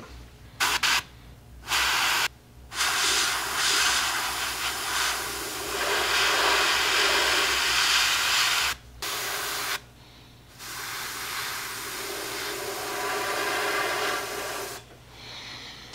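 PS-267 airbrush hissing as it sprays gray paint onto a plastic model hull. It comes in a few short bursts at first, then two long passes of several seconds each, broken by brief stops about nine and ten seconds in.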